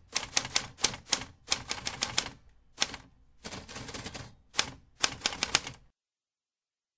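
Typewriter keystroke sound effect: quick runs of sharp key clicks in uneven groups with short pauses between them, then it stops.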